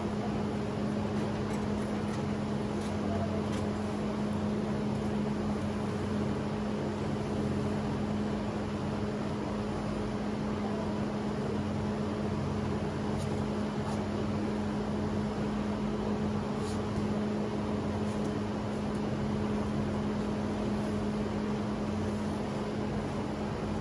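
Steady mechanical hum with one constant low tone and a fainter higher one over an even hiss, unchanging throughout.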